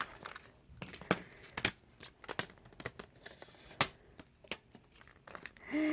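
Plastic shrink-wrap and packaging on a CD case being picked at and torn by fingers, crinkling with scattered sharp crackles and clicks, one louder near the end.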